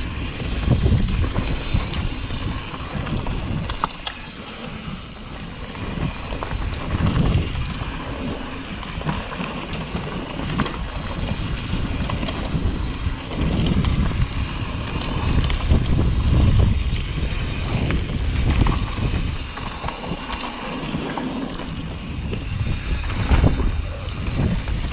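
Wind buffeting a GoPro's microphone in gusts, over the rolling tyre and frame noise of a Canfield mountain bike riding down dirt singletrack.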